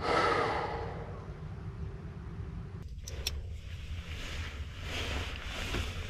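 A heavy sigh breathed out through a half-face respirator, fading over about a second. Then a couple of sharp clicks and the rustle of a disposable coverall as the wearer moves over the crawlspace floor, over a steady low rumble.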